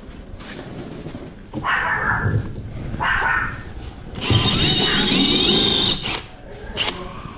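A dog barks twice, then a cordless drill with a spade bit runs for about two seconds, its motor whine wavering in pitch, and stops suddenly.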